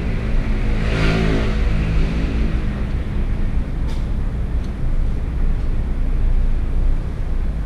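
Road traffic with a steady low rumble. A passing vehicle's engine is heard about a second in, its pitch falling slightly as it goes by.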